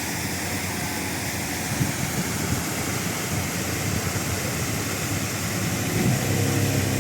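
A motor engine running under a steady rushing noise, with a steadier, deeper engine hum coming in about six seconds in.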